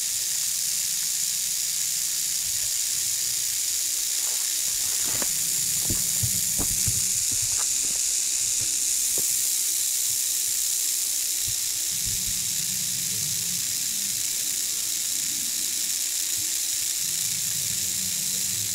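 Timber rattlesnake rattling its tail in a steady, high, dry buzz, the defensive warning of a snake lying coiled.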